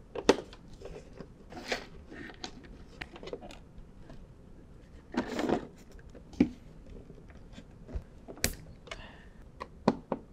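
Small irregular clicks, knocks and rustles of cable and plastic being handled while wiring a wall socket into its plastic back box, with a sharp click about a third of a second in, a longer rustle around five seconds and another sharp click near the end.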